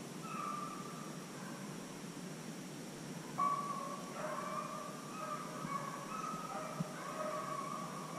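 Pack of beagles baying on a deer's trail: long, drawn-out howls, one or two at first, then several dogs overlapping from about three seconds in.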